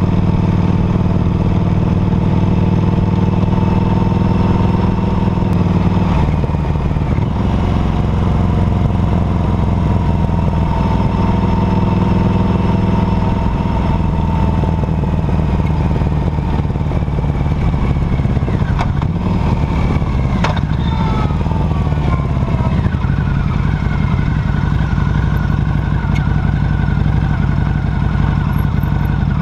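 A 2008 Harley-Davidson Night Rod Special's liquid-cooled Revolution V-twin heard close up from the rear footpeg while riding. The engine runs at a steady speed, then its pitch falls as the bike slows in the second half. A few sharp clicks and rattles come about two-thirds of the way through.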